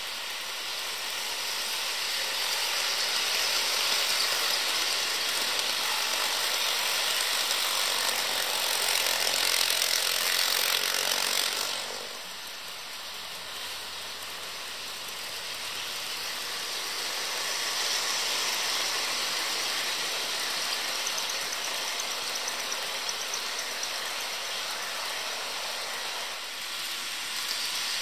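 HO scale model passenger train, led by two Alco PA-1 diesel models, running on sectional track: a steady rattle of wheels on the rails mixed with the motors' whir, growing louder as the train nears. The level drops suddenly about twelve seconds in, then builds again.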